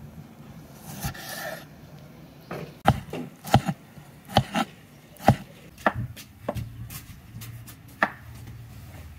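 Knife chopping on a cutting board: about a dozen sharp, uneven knocks, starting about two and a half seconds in and stopping near the end.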